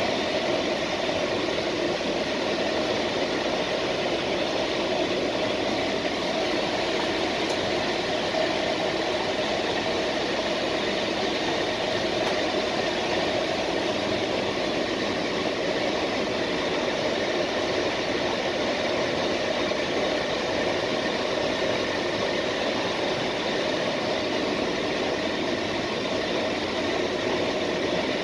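Steady running noise of a passenger train at speed, heard from inside the rear of the last coach: wheels rolling on the rails, an even rumble with no rhythmic clicking.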